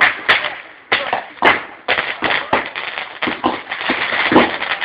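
Fireworks going off: a few separate bangs, then from about two seconds in a dense, rapid crackling of many small reports.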